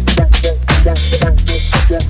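Background music with a steady drum beat and a deep bass line, in a hip hop style.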